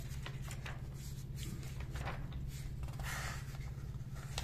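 Pages of a thick printed book being turned by hand: irregular paper rustles and soft flaps, over a steady low hum.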